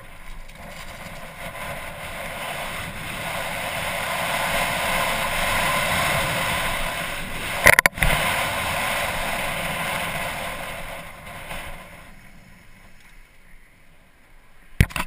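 Wind rushing over a helmet-mounted camera's microphone as a mountain bike rolls downhill, building over the first few seconds and dying away after about ten seconds. A single sharp knock about eight seconds in, and a few clicks near the end.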